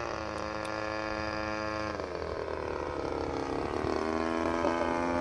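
DLE 35cc single-cylinder two-stroke petrol engine of a radio-controlled bush plane droning in flight overhead. The note holds steady, dips in pitch about two seconds in, then climbs back to a steady note about four seconds in.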